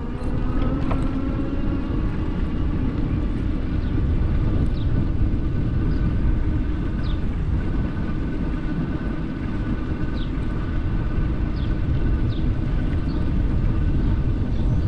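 Wind rushing over the microphone and tyre rumble from an e-bike riding along a trail, with a faint steady whine and a few short high chirps.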